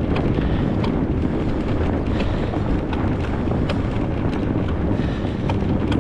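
Wind buffeting the microphone in a steady low rumble while riding a fat bike through snow, with scattered sharp ticks throughout.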